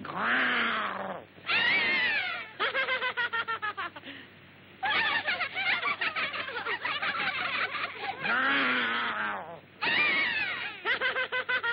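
Cartoon voice effects of frightened lambs bleating and crying out. The calls come as quavering runs of rapid short bleats and longer wavering cries, with brief breaks between them.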